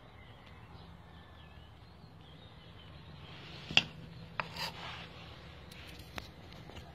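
A metal spoon clicking against a tin can of wet cat food and scraping inside it: one sharp click a little under four seconds in, a short scrape just after, and another click about six seconds in.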